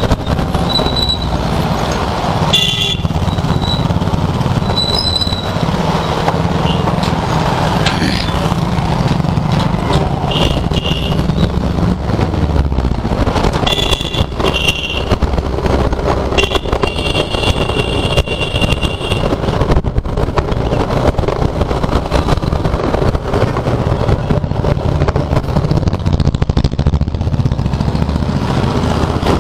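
TVS Jupiter scooter running along a street: a steady engine and road rumble with wind on the helmet-mounted camera's microphone. Vehicle horns toot several times, with short beeps in the first half and one held for about two seconds past the middle.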